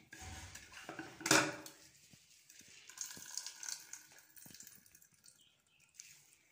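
Wet grated onion being squeezed out by hand and handled over a stainless-steel bowl. There is a short loud wet rush about a second in, then faint dripping water and light clicks against the bowl.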